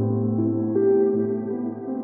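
Calm ambient background music: held, sustained notes that step to new pitches every half second or so.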